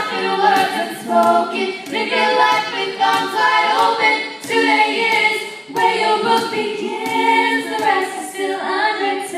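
Female vocal group singing in close a cappella harmony, several voices together with no instruments.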